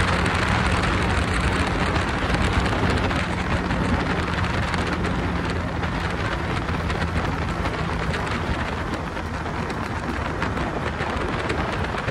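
Wind rushing over the microphone of a moving Bajaj Chetak scooter, over the steady running of its petrol engine at cruising speed.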